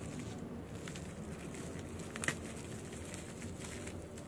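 Bubble-wrapped parcel handled by hand: faint crinkling of the bubble wrap and packing tape, with one sharp click about halfway through.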